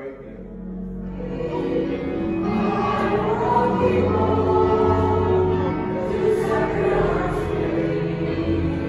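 A church hymn: voices singing together over sustained accompaniment in a reverberant church, swelling over the first few seconds and then holding steady.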